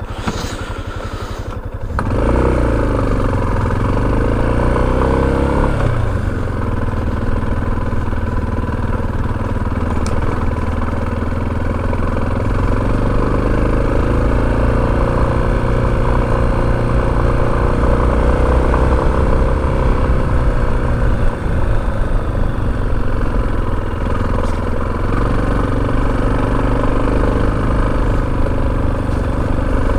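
Motorcycle engine running while riding, its pitch rising and falling with the throttle; it gets louder about two seconds in.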